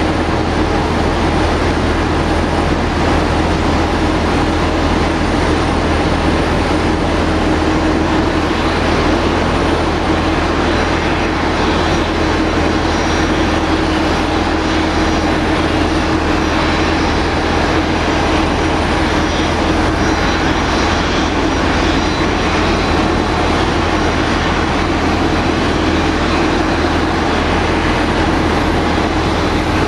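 Steady jet-airliner noise from a parked Boeing 787-8 at the gate: a constant rushing drone with a held hum underneath, unchanging throughout.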